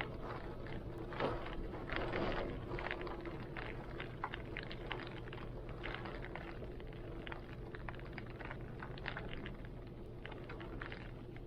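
Heavy rain falling, with many close drops ticking sharply and irregularly over a low, steady rumble of wind. Slightly louder in the first couple of seconds, then evening out.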